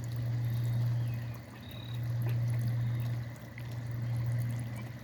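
Pond water running down an open drain, a low gurgle that swells and fades about every second and a half as the pond nears empty.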